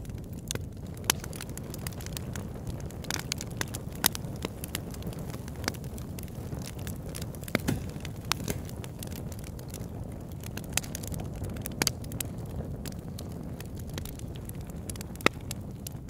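A fire crackling: a steady low rumble of flame with irregular sharp pops and snaps, a few of them louder than the rest.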